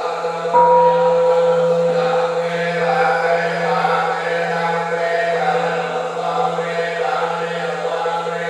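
Buddhist monks chanting a sutra together in a steady, droning recitation. About half a second in, a single struck note rings out and fades over a second or so beneath the chant.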